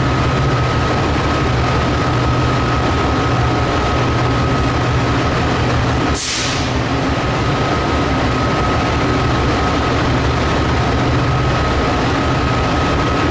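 Diesel locomotives idling: a steady low engine drone with a constant high whine. About six seconds in, a short sharp burst of air hisses out, like an air brake release.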